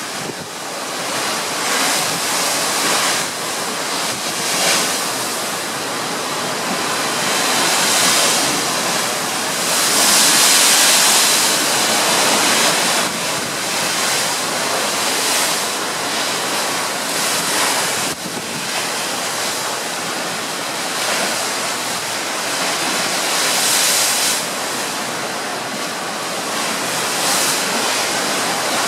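Sea water rushing and foaming along the hull of a moving cruise ship, with wind blowing over the microphone; the rushing swells and eases, loudest about ten seconds in.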